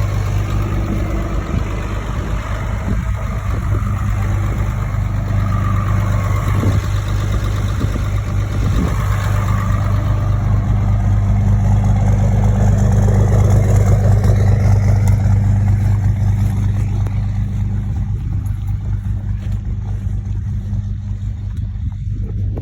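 Pickup truck running steadily while driving slowly, a constant low engine hum with road noise, swelling a little about halfway through and easing off toward the end.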